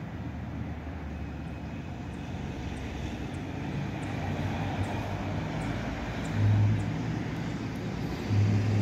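Steady low rumble of city traffic, with two short, louder low hums near the end.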